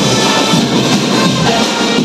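Live percussion band playing loudly: drums and cymbals beating a steady rhythm, with pitched notes sounding over the beat.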